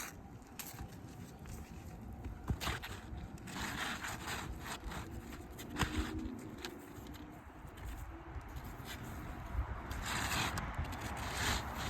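Scraping and rustling of asphalt shingles being handled during a roof repair, with scattered sharp clicks and taps and a longer scraping passage near the end.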